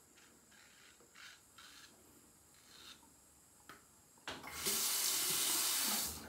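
Bathroom tap turned on about four seconds in, water running into the sink as a steady hiss for about two seconds, then shut off.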